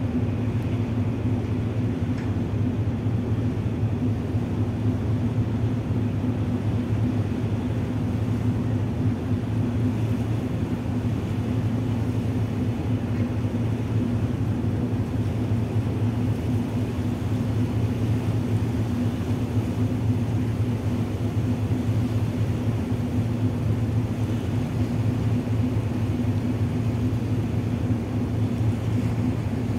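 Tugboat's diesel engines running steadily under load while pulling on a towline, a constant low drone with no change in pitch.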